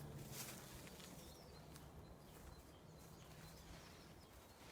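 Near silence: faint forest ambience with distant birds chirping now and then.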